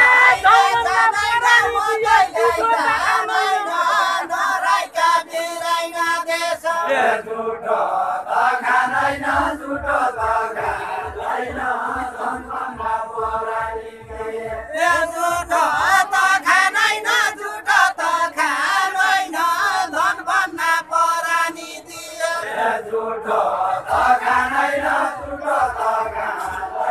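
Group of men singing a Deuda folk song together, a chanted verse to a repeating tune in phrases with short breaks, and a low regular beat under much of it.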